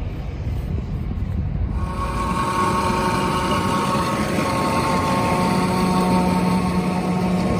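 John Deere self-propelled forage harvester running as it comes towards the listener. A low rumble at first, then its steady engine drone and whine come in about two seconds in and grow louder.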